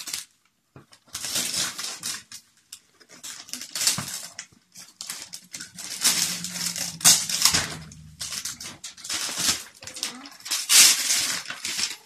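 Christmas wrapping paper being torn off a large cardboard gift box by hand, in a series of quick rips and rustles with short pauses between.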